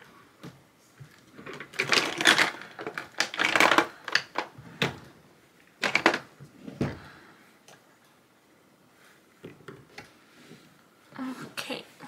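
Small hard objects being handled and set down on a desk: a run of clicks, clacks and rustles, busiest in the first seven seconds, then a few faint ticks.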